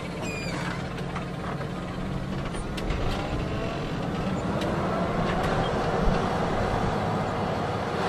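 Fendt tractor's six-cylinder diesel engine running under load while pulling a deep plough, its pitch slowly rising and the sound getting gradually louder.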